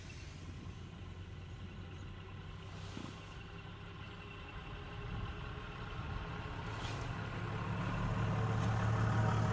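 Ford 7840 tractor's diesel engine running steadily, growing louder over the second half.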